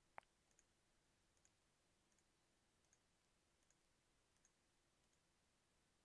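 Near silence with a few faint computer mouse clicks. The first, just after the start, is the loudest, and about five softer ones are spread unevenly over the next few seconds.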